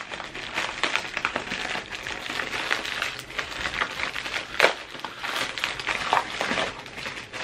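Crinkling and rustling of white wrapping paper as a package is torn open and unwrapped by hand, with a few sharper crackles.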